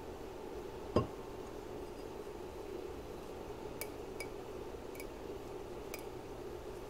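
Stemmed wine glass handled in the hands, knocking once about a second in. Four faint, sharp clicks of glass follow over the next few seconds.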